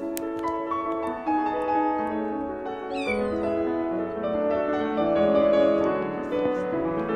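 Piano music over a stray cat in a wire live trap meowing once, a short high cry falling in pitch about three seconds in. A sharp click sounds just after the start.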